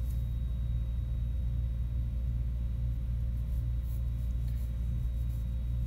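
Pencil scratching lightly on sketchbook paper in a few short strokes in the second half, over a steady low hum.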